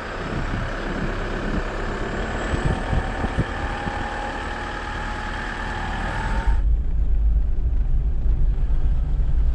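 Car driving slowly on a dirt road, engine and tyre noise heard from inside the cabin. About two-thirds of the way through, the sound changes suddenly to a heavier low rumble.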